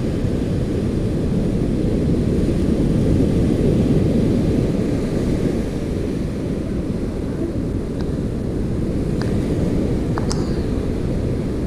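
Surf breaking on a sandy beach: a steady low rumble of waves, with a few faint ticks in the last few seconds.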